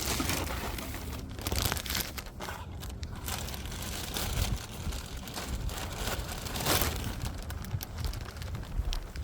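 Plastic grocery bags rustling and crinkling unevenly as they are handled, over a low rumble of handling noise.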